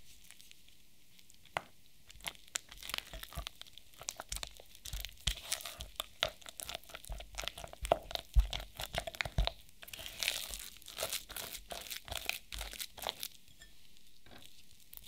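Silicone spatula mixing melted dark chocolate into softened cream cheese in a glass bowl: a rapid run of short wet clicks and scrapes of the spatula through the thick mixture and against the glass. It starts about a second and a half in and stops shortly before the end.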